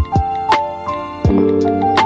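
Background music: a gentle melody of held notes over a soft, regular beat.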